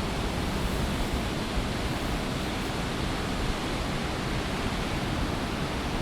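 Heavy winter storm surf breaking continuously, a steady, even rush of noise with no single crash standing out.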